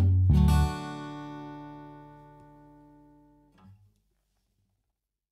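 Final guitar chord strummed once and left to ring, fading away over about three seconds. A faint brief brush near the end, then the sound cuts off.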